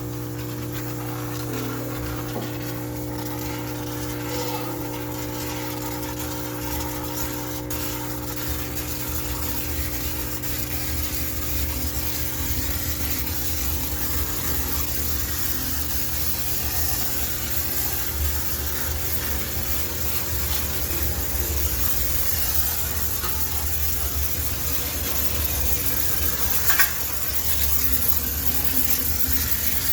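High-pressure steam cleaner hissing steadily as it jets sterilising steam, over a constant machine hum; one sharp knock near the end.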